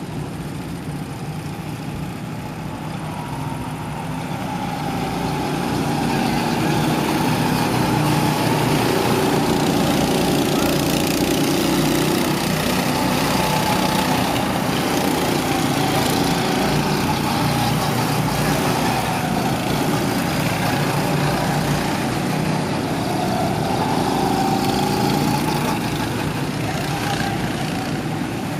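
Small petrol go-kart engines running as karts lap the track, a continuous drone whose pitch rises and falls. It grows louder about five seconds in and eases off near the end.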